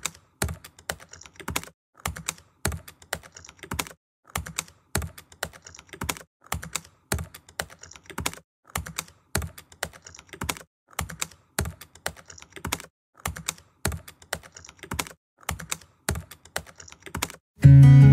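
Hand chasing of a gold mangalsutra pendant piece: a small hammer tapping a steel chasing punch, light sharp taps several a second in short irregular runs. Acoustic guitar music comes in near the end.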